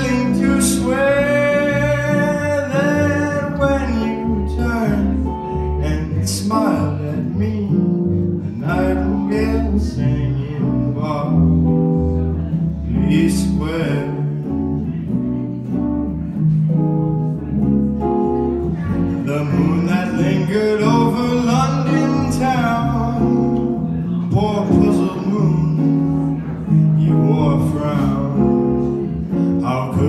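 Small jazz band playing live: double bass, two guitars and a man singing.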